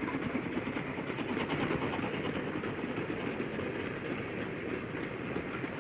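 Steam-hauled train running along the track, a steady rattling rumble.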